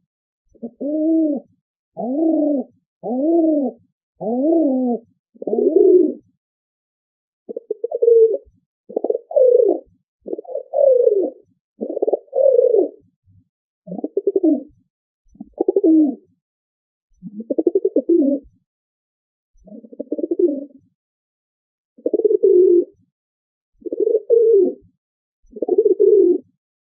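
Pigeon cooing: a long series of short, low coos, each rising and falling in pitch, repeating about every second and a half with silence between them.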